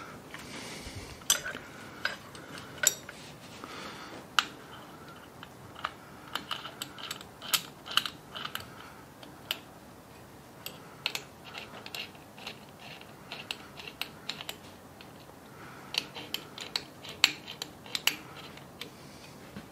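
Irregular light metallic clicks and clinks of screws and hand tools being worked on a three-jaw chuck and its backing plate.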